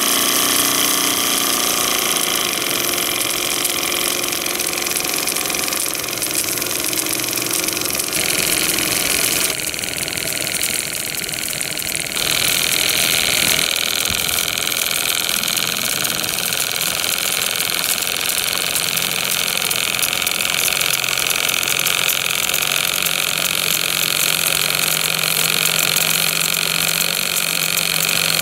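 Twin-cylinder model steam engine running steadily, with a continuous hiss over its mechanical running noise; the tone shifts abruptly a few times.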